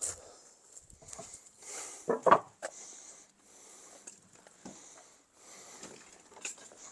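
Irregular rustling and scraping of hands working at the base of the pond, filling in the gaps underneath it, with two louder knocks about two seconds in.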